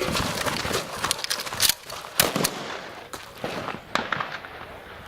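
Running footsteps mixed with quick sharp clicks and clacks: a shotgun being combat-loaded through its ejection port and its action worked on the move. The loudest clacks come just under two seconds in and again just over two seconds in.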